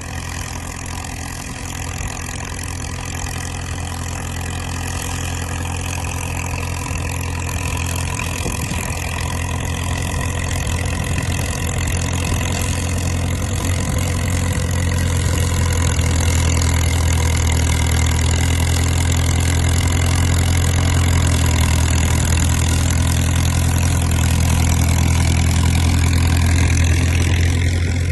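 Crawler dozer's engine running steadily, growing louder over the first half and then holding level.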